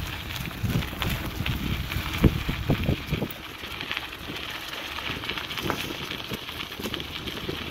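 Dry fallen leaves crackling and rustling as they are moved through on the path, with a run of louder low bumps on the microphone about one to three seconds in.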